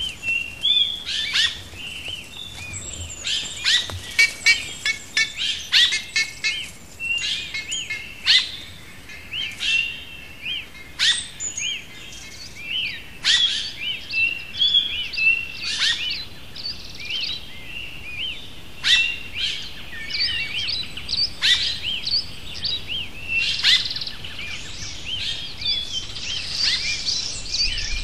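Several wild birds singing and calling together: a steady stream of short high chirps, sharp downward-sweeping notes and quick trills, one after another, over a faint background hiss.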